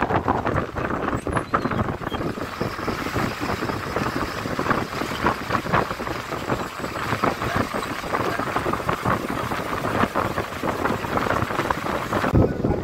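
Running noise inside a moving BharatBenz bus: steady engine and road hum, with frequent small rattles and knocks from the cabin over the road surface.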